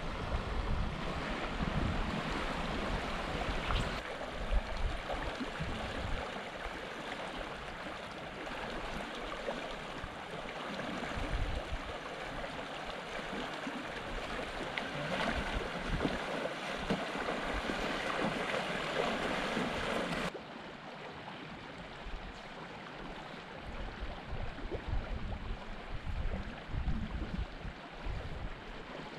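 Rushing water of a small mountain creek running over riffles and rocks, with wind gusting on the microphone. About twenty seconds in the sound cuts to a softer, quieter flow.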